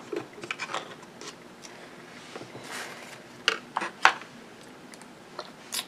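Light clicks and taps of food containers and utensils being handled and set down on a tabletop: a quick cluster in the first second, three sharp clicks a little past halfway, and one more near the end.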